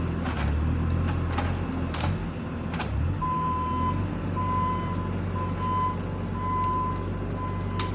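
Bobcat T650 compact track loader's diesel engine running steadily, with its backup alarm beeping repeatedly from about three seconds in as the machine reverses. A few sharp knocks sound along the way.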